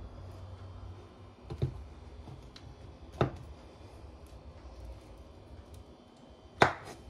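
Knife being pushed through a hard wheel of kefalotiri cheese on a wooden cutting board, with three sharp knocks of blade and cheese against the board: about one and a half, three and six and a half seconds in, the last the loudest.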